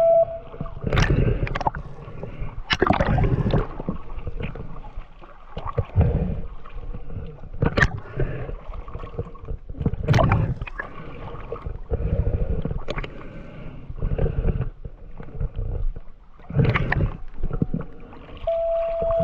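Seawater sloshing and gurgling over a camera held at the sea surface, with irregular splashes as it dips in and out of the water. A faint steady hum lies underneath.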